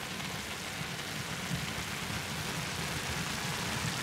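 Agave lechuguilla flower buds simmering in salsa and oil in a frying pan: a steady sizzling hiss, with now and then a faint pop.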